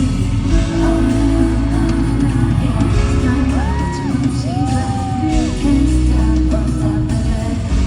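Loud K-pop music with singing from a concert sound system at a sound check, heavy in the bass, with a few gliding pitches near the middle.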